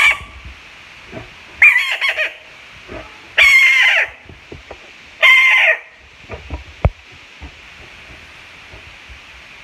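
Three loud, high-pitched animal calls of under a second each, about a second and a half apart, after a brief call at the very start.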